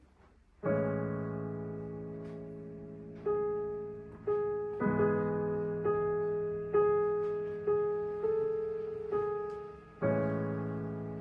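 Solo piano playing slow, spaced chords and single notes, each struck and left to ring out. The first chord comes under a second in, and fuller low chords return about halfway and near the end.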